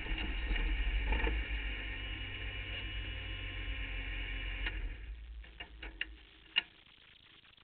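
Hill-climb race car's engine running at low speed, heard from its onboard camera, then shut off about five seconds in. A few sharp clicks follow, the last and loudest near the end.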